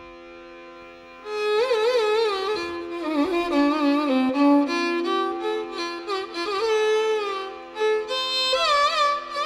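Carnatic violin playing ornamented, gliding melodic phrases in raga Mohanam over a steady drone. The drone sounds alone at first and the violin enters about a second in.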